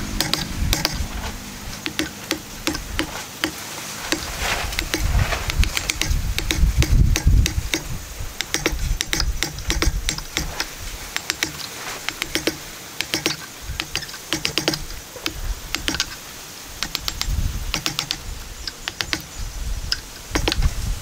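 Hand-held chisel paring and levering waste out of a notch in a wooden post: rapid, irregular clicks and cracks of wood fibres splitting and chips breaking away, with a few dull thuds about five to seven seconds in.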